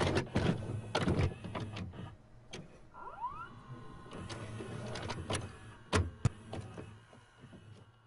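Videocassette recorder mechanism loading a tape and starting to play: a run of clunks and clicks, then a motor whirring up with a rising whine about three seconds in and running steadily, and two sharp clicks near the six-second mark.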